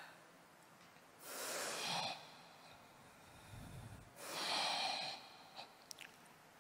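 A Qur'an reciter's deep breaths into a close microphone: two long, noisy inhalations of about a second each, some three seconds apart, drawn before the next long recited phrase. A few faint clicks follow near the end.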